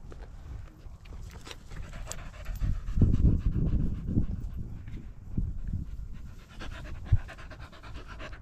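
A working cocker spaniel panting hard close to the microphone, quick regular breaths, with low rumbles in between.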